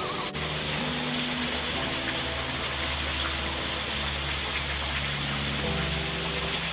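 Steady rush of flowing water from the creek and falls. Faint low tones underneath change pitch in steps every second or so.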